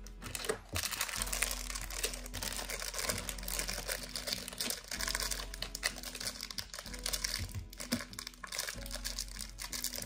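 Crinkling of a piping bag as it is twisted and squeezed, over background music.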